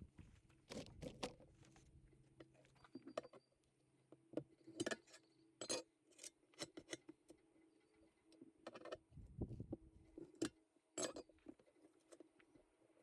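Scattered sharp metallic clinks and knocks of hand tools and clamps being worked against a tractor wheel rim while a tire bead is levered on by hand, a dozen or so at irregular intervals with a faint steady hum underneath.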